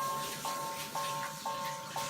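Toy railway crossing's electronic warning bell ringing in the Japanese 'kan-kan' pattern, about two strikes a second. Each strike is a two-tone ding that dies away before the next.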